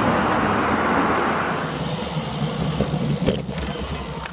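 Road traffic on a busy multi-lane street: passing car noise is loudest in the first second and a half, then eases to a lower rumble. A single sharp click comes about three seconds in.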